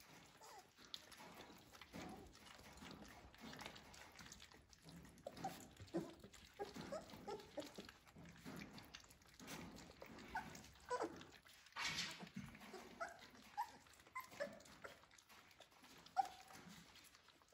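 Three-week-old Labradoodle puppies giving small, scattered whimpers and squeaks while lapping and smacking at soft food in a stainless-steel feeding dish, with little clicks throughout.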